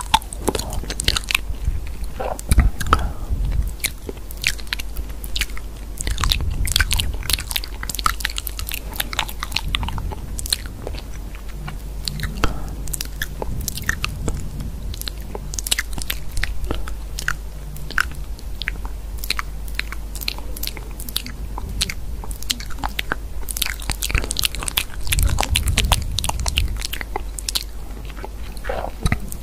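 Rapid, irregular clicks and taps of typing on a smartphone's touchscreen keyboard, over a steady low hum.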